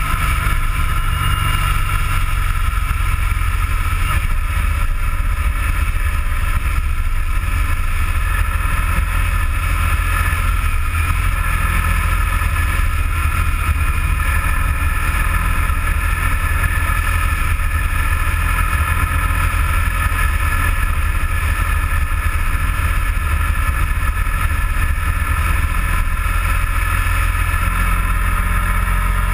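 A motorcycle riding at steady road speed: wind buffeting the mounted camera's microphone as a heavy low rumble, with a steady engine and drivetrain hum over it.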